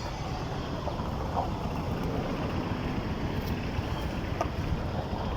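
Massey Ferguson 290's four-cylinder Perkins diesel engine running steadily with an even low rumble, just after being started following an engine repair.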